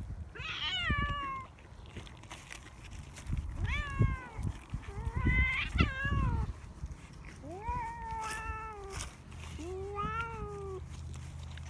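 Domestic cat meowing about five times, each meow a short call that rises and then falls in pitch.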